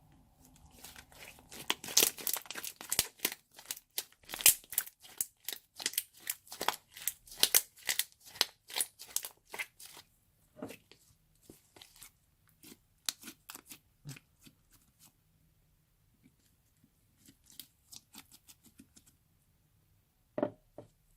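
Clear slime being squeezed and stretched by hand, giving rapid crackling pops and clicks, dense for about the first ten seconds, then sparser with short pauses.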